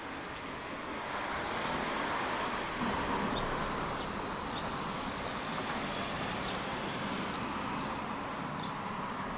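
Road traffic: the noise of vehicles and their tyres on a street swells about a second in and then holds steady.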